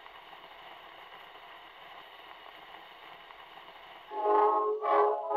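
Faint, even surface hiss from an early 78 rpm disc recording, then about four seconds in the orchestral introduction of the song starts loudly.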